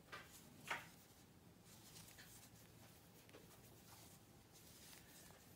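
Near silence, broken by a few faint, soft rustles of yarn and crochet hook being worked, the clearest about three-quarters of a second in, over a low steady room hum.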